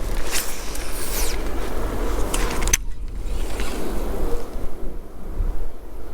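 Wind buffeting an outdoor microphone: a steady low rumble and hiss with some rustling. It drops out for a moment about three seconds in.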